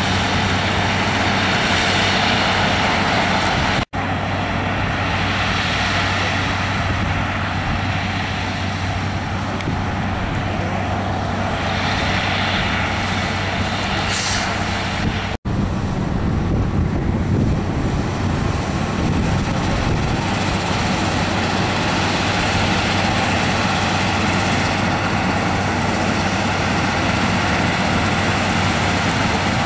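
Claas Lexion 670 Terra Trac combine harvester running steadily under load while threshing soybeans: a constant engine drone under the rush of the threshing machinery. The sound cuts out for an instant twice, about four and fifteen seconds in.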